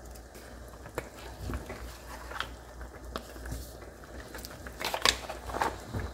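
Raw salmon and shrimp sliding off a plate into a pot of seafood stew, then a wooden spoon stirring the fish and mussel shells in the broth: soft wet squelches, clicks and light knocks. The loudest are a few strokes about five seconds in, over a steady low hum.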